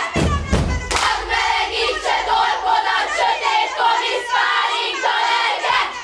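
A group of young voices loudly chanting a drinking chant in unison, in a quick regular beat, with a dull thump in the first second. The chant breaks off abruptly at the very end.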